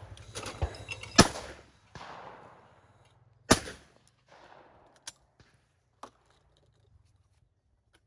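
Over-and-under shotgun fired twice, a little over two seconds apart, at a pair of clay targets. A few faint clicks follow.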